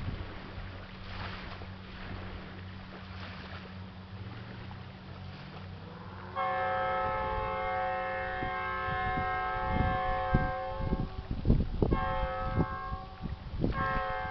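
Tugboat horn blowing one long steady blast of about five seconds, starting suddenly about six seconds in, then two shorter blasts near the end. A low steady hum comes before the horn, and wind buffets the microphone during the blasts.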